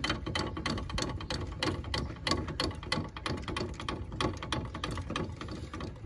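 Caravan jockey wheel being wound up by its crank handle: the screw mechanism gives a rapid, irregular run of metallic clicks and rattles as the wheel is drawn up off the ground.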